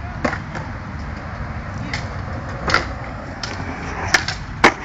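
Skateboard wheels rolling over concrete with a steady low rumble, broken by several sharp clacks of boards striking the ground, the loudest near the end.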